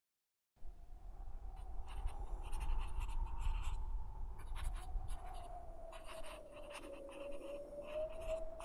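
Pen scratching across a notebook page in quick, repeated strokes of handwriting, starting about half a second in after a moment of silence. A steady tone that drifts slightly in pitch runs beneath it.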